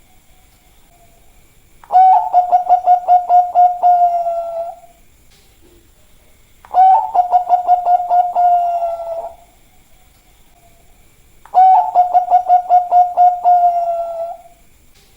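Zebra dove (Bangkok-strain perkutut) singing three song phrases. Each phrase is a quick run of about five pulsed coos a second over a held, steady coo note, with a pause of a couple of seconds between phrases.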